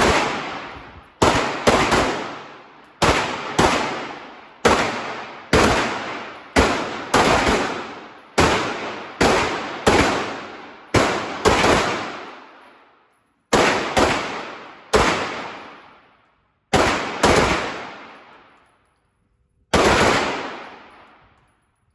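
A series of pistol shots fired one after another, many in quick pairs about half a second apart, each shot followed by a trailing echo, with brief pauses between strings.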